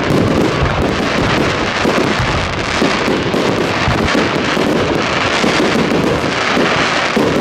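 Fireworks display: a dense, unbroken run of bangs and crackles from pyrotechnic shells.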